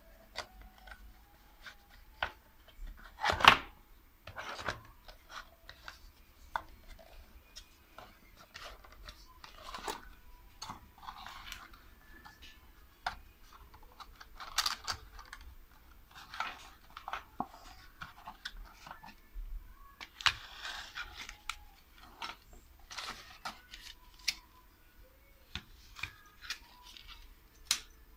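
Clear plastic pickup packaging being handled and opened: intermittent crinkling, scraping and clicking, with a louder crackle about three seconds in.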